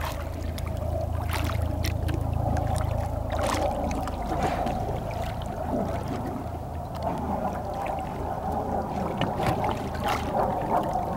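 Jet ski engine idling low and steady, with a few brief water splashes.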